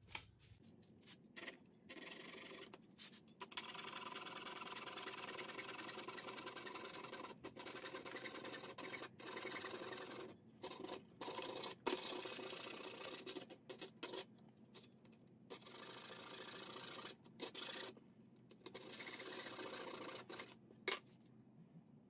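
A small hand saw cutting a clamped sheet of clear acrylic in fast back-and-forth strokes, coming in spells broken by short pauses. There is a sharp click near the end.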